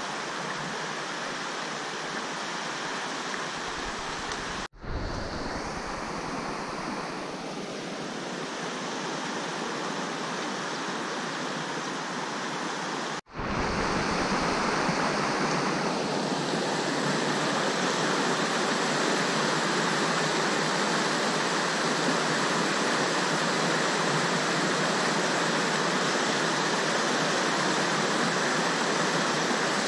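River water rushing steadily, with two brief dropouts about five and thirteen seconds in; it is louder after the second.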